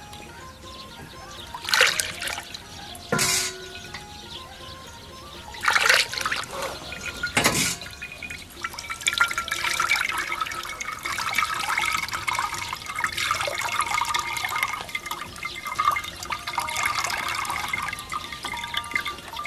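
Liquid juice from a cow's stomach contents (niu bie) being strained through a fine cloth bag. There are four loud splashes in the first eight seconds, then a steady trickle.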